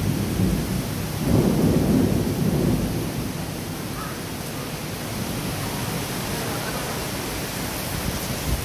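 Heavy rain pouring steadily. A low rumble of thunder swells about a second in and fades after a couple of seconds.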